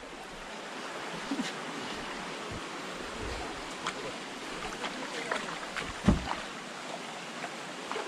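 Shallow river water running over rocks, a steady rushing hiss, with a few faint knocks and a low thump about six seconds in.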